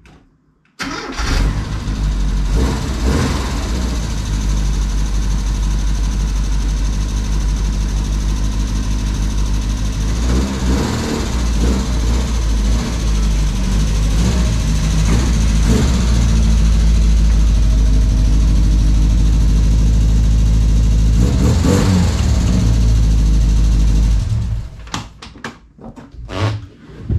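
Classic Mini's 998cc A-series engine with twin SU carburettors starting about a second in and running steadily for over twenty seconds, a little louder in the last part as the car is moved. It is then switched off and stops abruptly.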